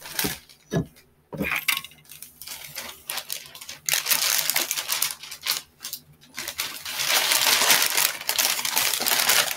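A shopping haul being dug out of a bag: a few knocks and clinks of items, then from about four seconds in a steady loud rustling and crinkling of the bag.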